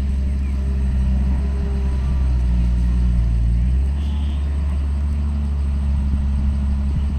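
Diesel engine of heavy earthmoving machinery running steadily with a low drone, its note shifting slightly about four seconds in.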